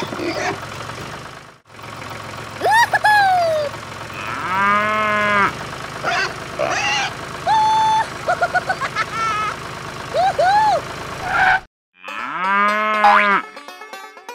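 Cow mooing, two long calls, one about four seconds in and one near the end, over a steady low engine hum. Short high squeaky calls and brief whistle-like tones come in between. The hum cuts off suddenly just before the last moo.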